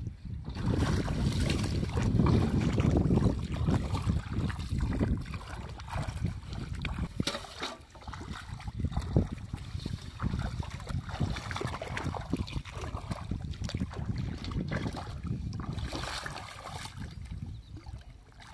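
Shallow muddy water sloshing and splashing as someone wades through it and pushes a metal basin down into it, loudest in the first few seconds, with scattered small knocks and splashes.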